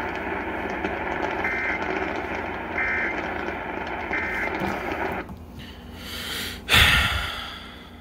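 AM radio hiss carrying three short two-tone data bursts about 1.3 seconds apart: the EAS end-of-message code that closes an emergency alert. The broadcast sound cuts off about five seconds in, and a brief loud thump comes near the end.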